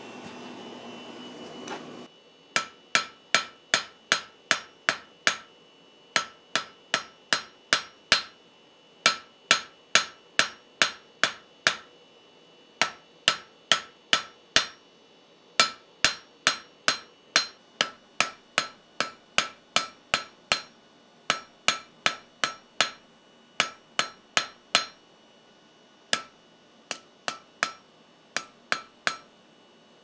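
Hand hammer striking a glowing-hot steel bar on an anvil, about two blows a second in runs with short pauses, each blow ringing: drawing out a railroad-spike shank. It opens with about two seconds of the induction forge's steady hum, which cuts off abruptly.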